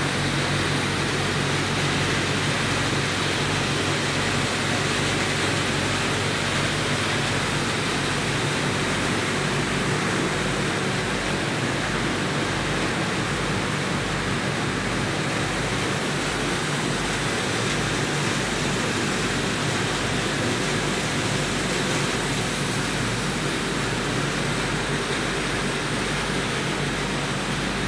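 Steady running noise of PCB recycling plant machinery: an even, loud rushing sound with a low hum beneath it.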